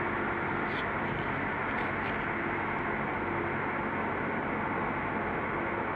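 Steady road and engine noise of a Toyota 4x4 cruising on a paved highway, heard from inside the cab, with a few faint ticks between about one and two seconds in.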